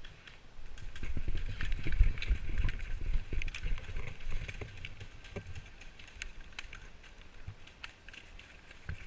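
Low rumbling noise on the GoPro's microphone, loudest in the first few seconds, with scattered small clicks and knocks.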